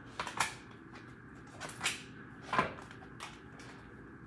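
Tarot cards being pulled from the deck and laid on a hard countertop: about eight short, crisp snaps and taps at uneven intervals.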